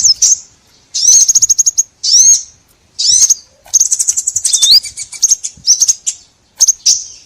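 Recorded calls of small songbirds, as used for a bird lure: bursts of high-pitched chirps and rapid trills separated by short pauses, with a rising whistle about two-thirds of the way through.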